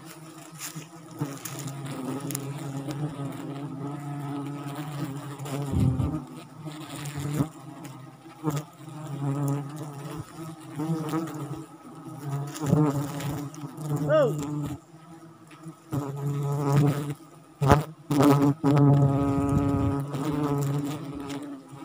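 Wild forest honey bees buzzing in a steady swarm close around, with single bees passing by in rising and falling whines. There are a few sharp knocks.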